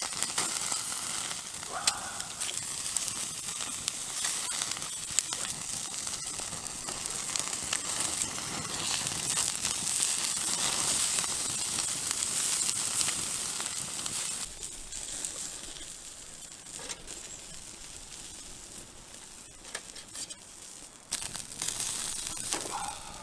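Mackerel sizzling as it grills over a wood fire, with scattered sharp crackles. The sizzle is louder for the first dozen or so seconds, then dies down.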